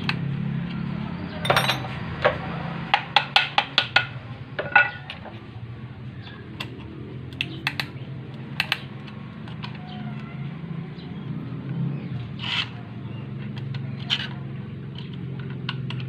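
Ratchet-type piston ring compressor clicking as its key is turned to tighten the band around a piston. A quick run of about six clicks comes a few seconds in, then scattered single metal clicks, over a steady low hum.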